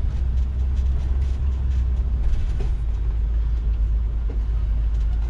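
1990 Fleetwood Bounder motorhome heard from inside its cab, engine and chassis making a steady low rumble as it rolls slowly forward, with faint scattered rattles.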